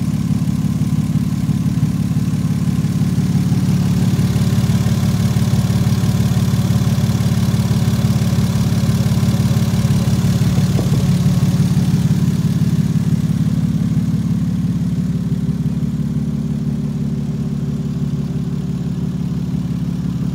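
Toyota Crown's 2JZ-GE 3.0-litre straight-six engine running steadily at idle, easing slightly quieter in the second half.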